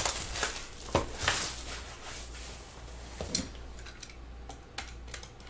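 Clicks and light clatter of a small cardboard box and a box cutter being handled on a tabletop, with a few sharp clicks in the first second and a half and quieter scattered ticks after.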